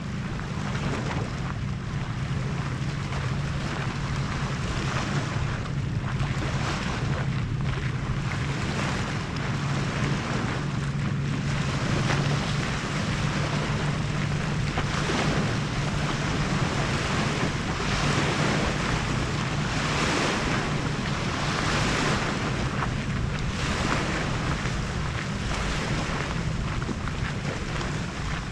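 Wind buffeting a handheld 360° camera's microphone, rising and falling in gusts every second or two, over a steady low hum.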